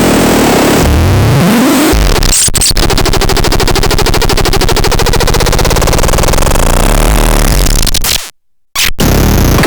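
Electronic noise box (MELULAITE 5) giving out harsh, loud synthesized noise. A low tone rises in pitch about a second in, then turns to a fast stuttering buzz that cuts out for about half a second near the end before starting again.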